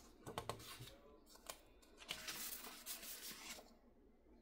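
Faint rustling and crinkling of thick scrapbook paper sheets being leafed through and shifted by hand: a few light crackles in the first second, then a longer rustle about two seconds in.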